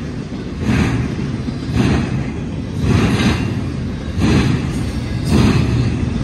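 Double-stack intermodal freight train's well cars rolling past: a steady low rumble of wheels on rail that swells about once a second.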